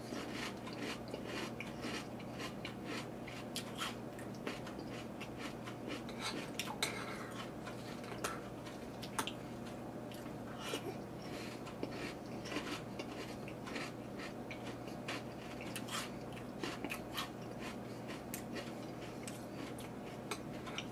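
Metal spoon clinking and scraping against a bowl of cereal and milk, with chewing of crunchy frosted corn flakes between spoonfuls: many short, irregular clicks over a steady low hum.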